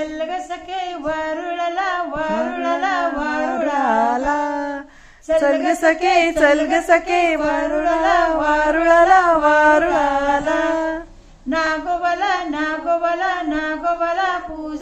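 A woman singing a melodic song with a wavering, gliding pitch, broken by two short pauses between phrases.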